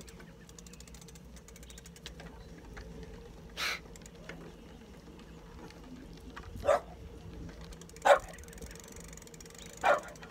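A dog barking four times, each a short single bark a second or two apart, the last three louder than the first, over a low steady rumble.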